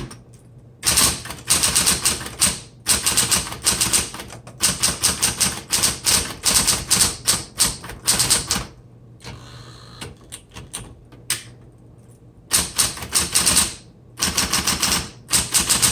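A 1960s Smith Corona Electra 120 electric typewriter being typed on quickly: rapid runs of key strikes for about eight seconds, a pause, then two shorter runs near the end.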